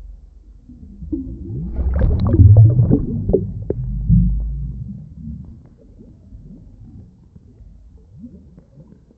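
Underwater bubbling and water churning, muffled as heard by a submerged camera. It swells from about a second in, is loudest for a couple of seconds, then dies down to a faint low rumble.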